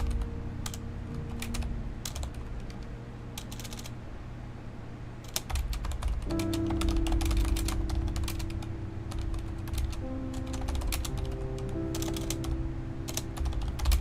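Typing on a Corsair mechanical keyboard: keys clacking in irregular bursts, some quick runs and some short pauses. Background music with long held notes plays underneath.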